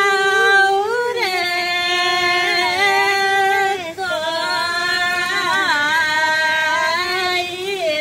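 A woman singing a slow melody in long held notes with wavering ornaments, pausing briefly for breath about halfway through.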